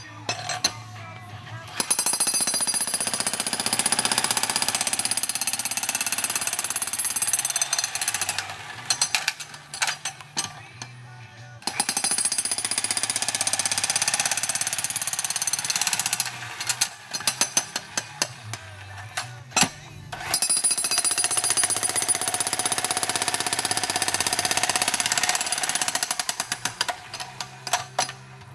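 Jackhammer breaking ground in three long bursts of rapid hammering, each several seconds long, with scattered single knocks in the pauses between.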